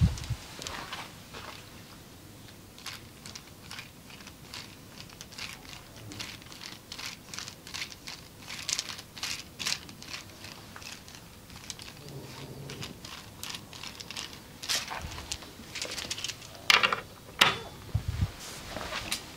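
Irregular soft crinkling and crackling clicks of a massage session, with a few louder clicks near the end.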